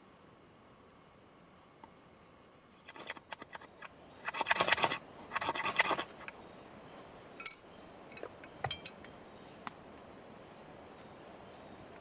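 Two short bursts of rapid scraping about four and five and a half seconds in, led by a run of light clicks and followed by a few scattered sharp clicks and clinks.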